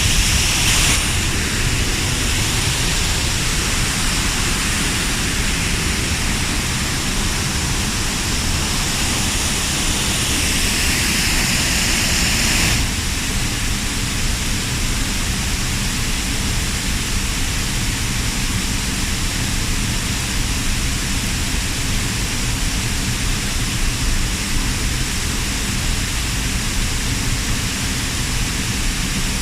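Waterfall or rapids: a steady, loud rush of falling water, its high hiss shifting a little about halfway through.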